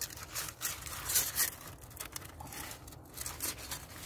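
Collapsible metal camp stove being packed into its black fabric pouch: fabric rustling and metal scraping in quick, irregular strokes, loudest a little over a second in.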